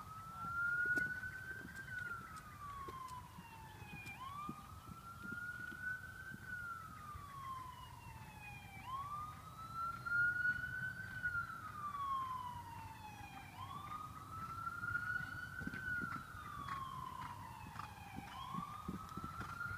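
Emergency-vehicle siren in a slow wail. Each cycle rises for about two seconds, then falls for about two and a half, and repeats steadily about every four and a half seconds.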